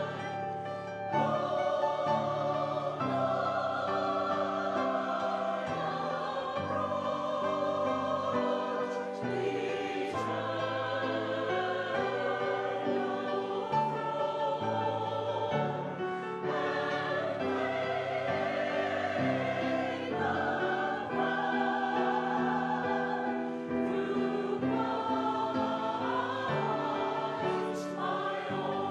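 Congregational or choir singing of a worship song with instrumental accompaniment, sung notes held with vibrato over sustained chords.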